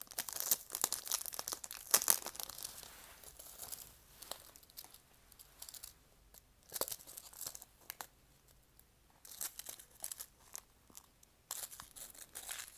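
Clear plastic packaging crinkling and tearing as hands open a small bagged necklace, in irregular crackly bursts, busiest in the first couple of seconds and again near the end.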